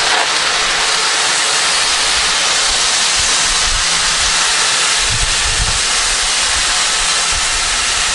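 Water poured from a plastic bottle into a hot kazan of fried meat and vegetables, sizzling and hissing steadily as it hits the hot fat, with a few low glugs from the bottle about five seconds in. This is water going in to make the broth (zirvak) for plov.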